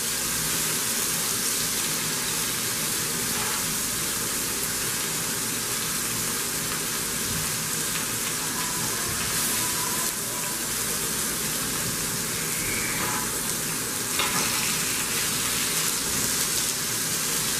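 Chicken chapli kababs frying on a tawa (flat griddle), a steady, even sizzle.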